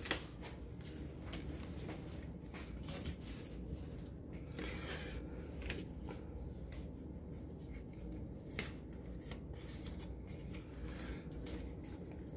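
Faint handling of Pokémon trading cards and a booster pack: scattered soft clicks and rustles.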